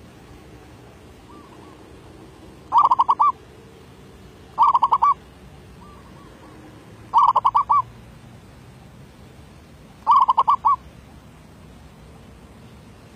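Zebra dove (merbok) calling: four short, rapid trilled coos spaced two to three seconds apart, with a couple of fainter, softer notes between them.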